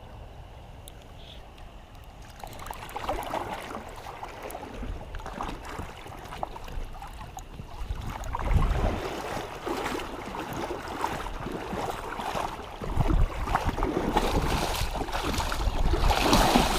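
Creek water splashing and sloshing irregularly as a hooked brown trout is played in to the net, growing louder in the second half, with occasional low thumps.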